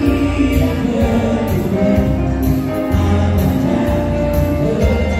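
Music with a steady beat, playing continuously.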